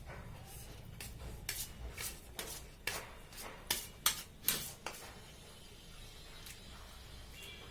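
A person eating noodles by hand in a hurry: a run of wet, irregular mouth clicks and smacks while chewing, loudest about four seconds in, then easing off.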